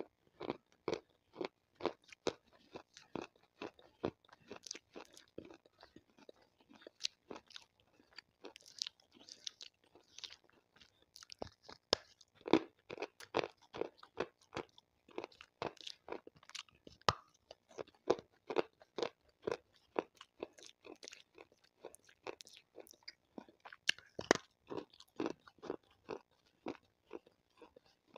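Close-up crunching and chewing of a piece of water-soaked white slate stone: a steady run of sharp crunches, two or three a second.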